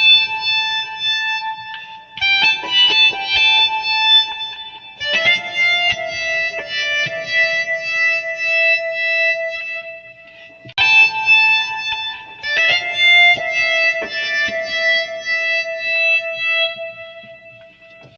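A pitched musical instrument plays short phrases of chords, each starting sharply and fading out over several seconds.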